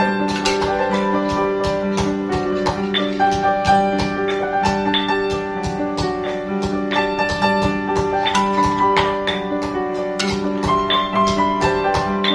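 Background instrumental music led by piano, with a steady beat.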